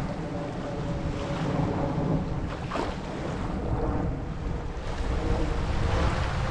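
Gulf of Mexico surf washing ashore in swells, with wind buffeting the microphone and a faint steady hum underneath.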